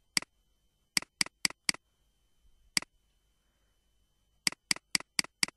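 Computer mouse clicking: sharp single clicks in small groups. One click, then four in quick succession about a second in, one more near the middle, and a run of five near the end.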